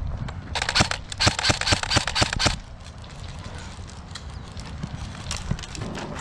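Airsoft electric rifle firing a rapid string of shots for about two seconds, starting about half a second in, then only a few scattered clicks.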